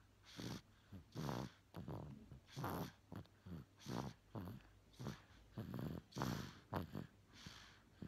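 A sleeping baby snoring: a quick, uneven run of short snores with each breath, nearly two a second.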